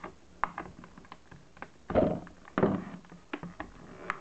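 Product packaging being carefully opened by hand: a series of small clicks, taps and rustles as the multi-tool is worked out of its box.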